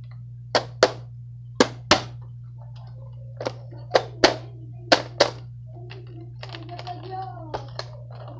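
Toy Nerf blaster's plastic mechanism being worked over and over, sharp clicks coming mostly in pairs, without firing: the blaster is jammed or not working. A steady low hum sits underneath.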